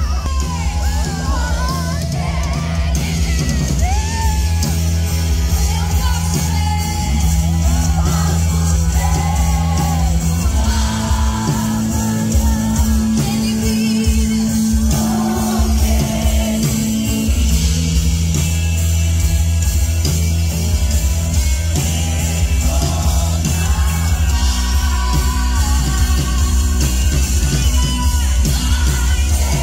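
Live gospel band playing with drums, bass guitar and keyboard under a female lead singer, a heavy bass line throughout, while the crowd sings along and yells.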